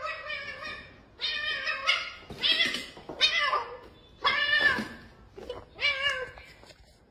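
A domestic cat meowing over and over: a string of about six loud, drawn-out meows, one roughly every second, each bending in pitch.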